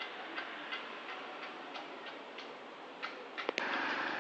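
Woodpecker hammering on wood: sharp, evenly spaced taps about three a second. A quicker cluster of knocks follows, then a louder rustling burst near the end as the camera is moved.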